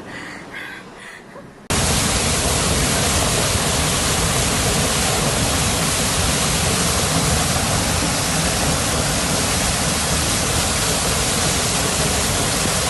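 Rushing water: a loud, steady, even roar that cuts in suddenly about two seconds in, after a quieter stretch with faint pulses.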